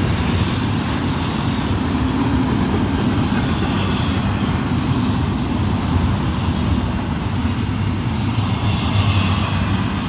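Double-stack intermodal freight train's container well cars rolling past: a steady low rumble of wheels on rail, with swells of higher hiss about four seconds in and again near the end.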